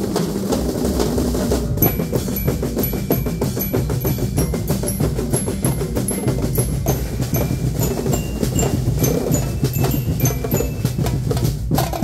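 A drum and bell-lyre corps playing: fast, dense snare and bass drum rhythms, with a metal bell-lyre melody of short ringing notes joining about two seconds in.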